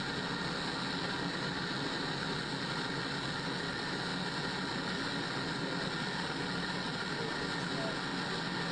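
Propane gas burner of a glass beadmaking oven burning steadily, an even rushing noise with no change in level.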